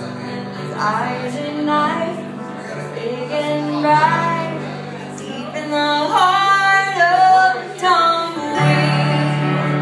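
A woman singing a slow song live, accompanied by acoustic guitar and keyboard chords held underneath.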